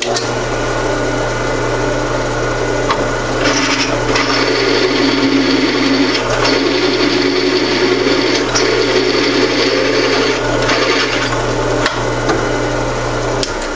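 A drill press running, its twist drill cutting a clearance hole for a 5/16-inch bolt through quarter-inch metal angle held in a vise. There is a steady motor hum under a harsh cutting noise, and the motor stops near the end.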